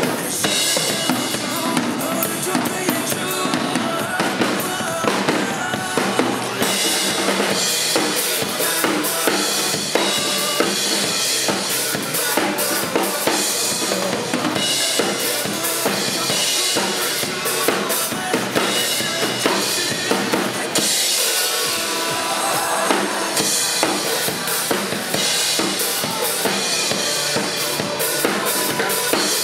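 Acoustic drum kit played live, with bass drum, snare and cymbals, over a rock backing track from a PA speaker.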